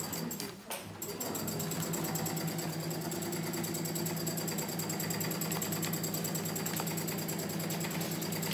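Electric sewing machine stitching with a fast, even rhythm. It runs in a short burst, pauses for a moment, then starts again about a second in and runs steadily at one speed.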